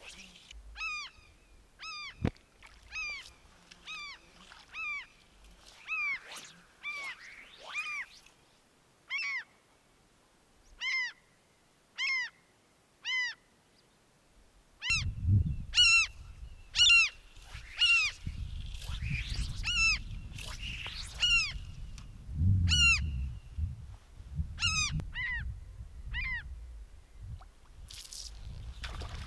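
A bird calling over and over, a short note that rises and falls, repeated roughly once a second. Wind buffets the microphone from about halfway through, and there is a single sharp click about two seconds in.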